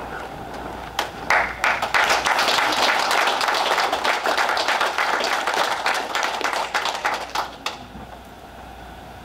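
An audience applauding: a few claps about a second in swell into steady applause, which stops abruptly near the end.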